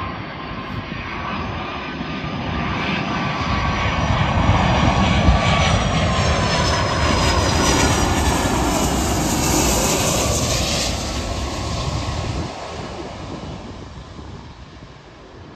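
Twin-engine jet airliner passing low on final approach. Its engine noise swells to a peak about halfway through, with high whining tones sliding down in pitch as it goes by, then fades as it moves away toward touchdown.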